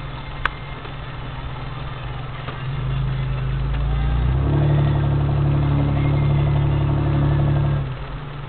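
Off-road vehicle's engine heard from inside the cabin while driving a dirt track: a steady drone that gets louder from about three seconds in, holds loudest for about three seconds, then drops back near the end. A single sharp click about half a second in.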